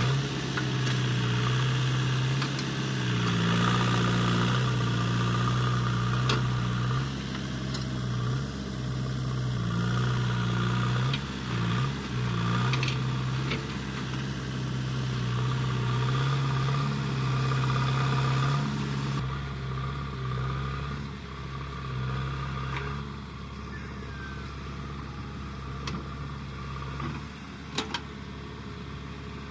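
JCB 3DX backhoe loader's diesel engine running, its pitch rising and falling as the revs change while the machine works, with a couple of sharp metallic knocks near the end.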